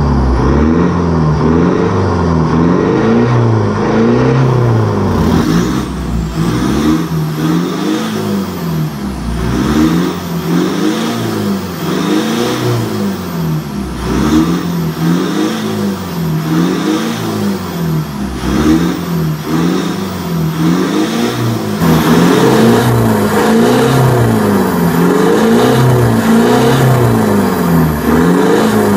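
2014 Mitsubishi Montero Sport GLX engine revved over and over through an aftermarket full exhaust system with dual tips, the revs climbing and dropping about every two seconds. It gets louder about two-thirds of the way in.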